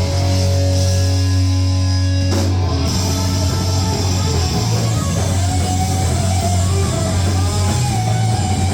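Live punk rock band playing loud, with distorted electric guitar and drums, recorded rough and boomy. The music changes abruptly a little over two seconds in.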